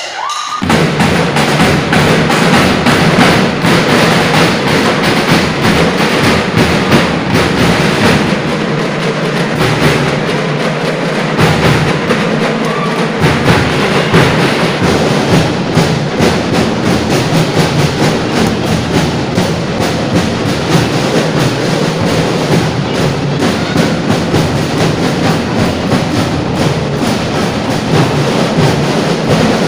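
School drum and lyre corps playing a marching piece: snare drums and bass drum keeping a dense, driving beat under bell lyres and trombones. The full band comes in loudly just after the start.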